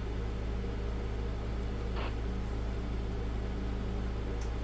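Steady low electrical hum with hiss, with a faint click about two seconds in and two light ticks near the end.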